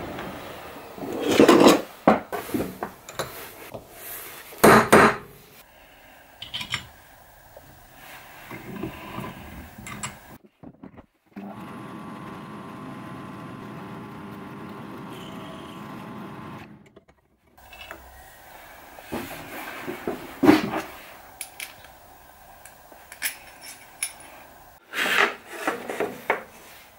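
Workshop handling sounds: hand tools clinking and knocking as they are handled in a tool drawer, with sharp knocks scattered through. A steady hum holds for about five seconds in the middle.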